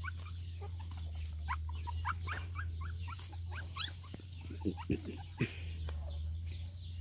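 Young puppies whimpering and squeaking in short, high cries, with a few lower whines about two-thirds of the way through, over a steady low hum.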